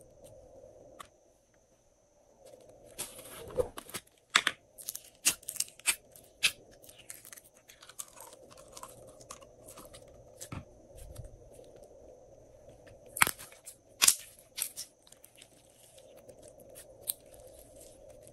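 Hands pressing and squeezing glossy glitter slime, giving irregular sharp clicks and crackling pops in two clusters, a few seconds in and again past the middle, with quieter sticky crackle between.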